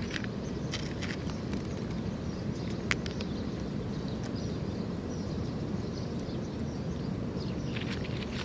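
Cat crunching dry kibble: scattered short crunches and clicks, a sharper click about three seconds in and a cluster of crunches near the end, over steady low outdoor background noise.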